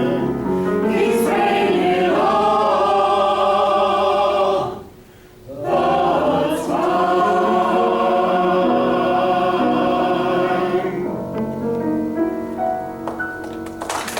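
Mixed choir singing sustained closing chords, with a brief pause about five seconds in before the next held chord. Applause breaks out at the very end.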